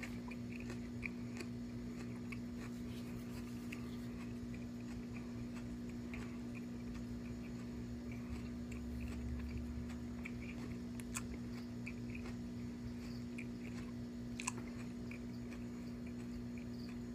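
A person chewing a bite of raw Berry Amarillo pepper pod with the mouth closed, faint crunchy clicks scattered throughout, over a steady low hum.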